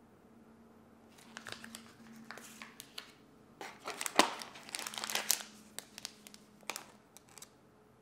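Plastic food packets crinkling and rustling as they are handled and lifted out of a plastic tray, with a sharp click a little after halfway. The rustling is loudest around the middle and then thins out.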